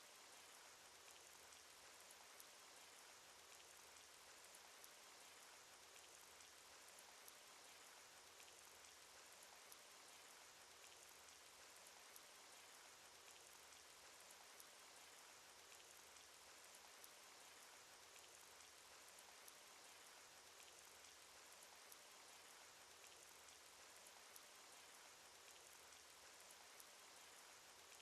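Rain sound effect from a cartoon: a faint, steady hiss of falling rain with many small scattered drop ticks.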